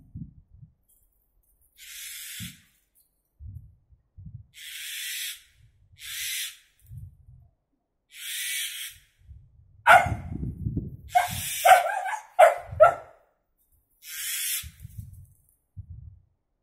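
A cat hissing in several separate bursts of about half a second to a second. About ten seconds in comes a quick flurry of loud, sharp barks and cries over low growling, the sounds of a dog and cat squaring off.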